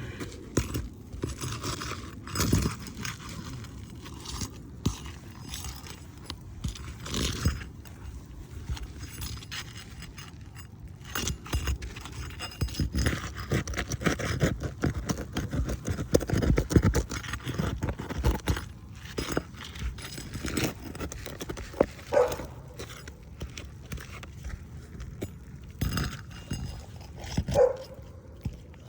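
Irregular scraping, rustling and knocking of work on an asphalt shingle roof: footsteps and hand tools moving over the shingles. Two short squeaks sound near the end.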